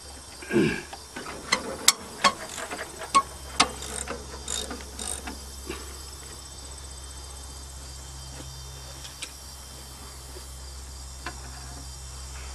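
A wrench clicking and clinking on metal, about a dozen sharp irregular clicks over the first five seconds or so, as the alternator belt adjuster is tightened. Crickets chirp steadily behind it, over a low hum.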